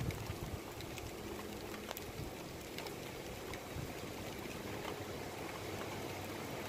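Steady, low outdoor background noise with a few faint ticks.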